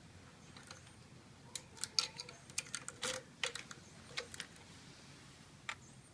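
A cluster of sharp, irregular clicks and taps, then one more click near the end.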